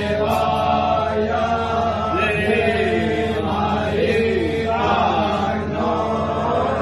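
Several voices chanting a Hindu devotional mantra together in a continuous sung line over a steady low hum.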